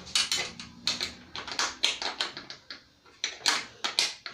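Series of sharp metallic clicks and taps, several a second and unevenly spaced, from hand tools and loose metal parts being worked on a tractor dash.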